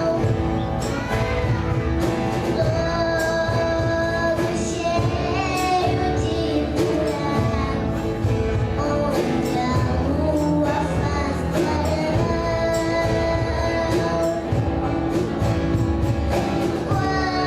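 A song performed with sung voices, apparently young singers, over a band with a steady drum beat and sustained instrumental tones.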